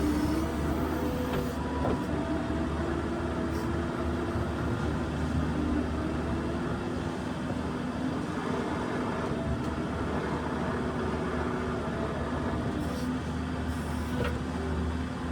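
New Holland skid steer running steadily: a low engine drone with a steady whine over it.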